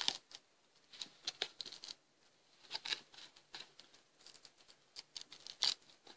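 Old brown tape being peeled back by hand from the edge of a canvas, giving a series of short, scratchy tearing sounds, the loudest about five and a half seconds in.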